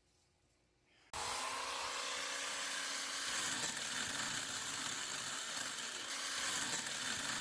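Near silence for about a second, then suddenly the steady whine and hiss of a small electric power-tool motor running.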